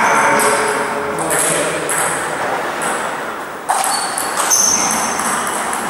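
Table tennis balls clicking off bats and tabletops during play, a run of sharp pings a fraction of a second apart.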